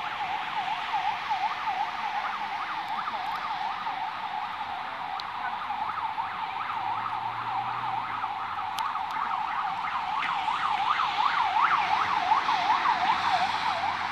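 Emergency-vehicle siren in a fast yelp, its pitch sweeping up and down several times a second without a break, growing louder in the last few seconds.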